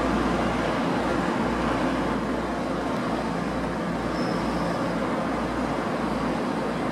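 TransPennine Express Class 185 diesel multiple unit's engines running, a steady rumble with a constant low hum under the station's echo.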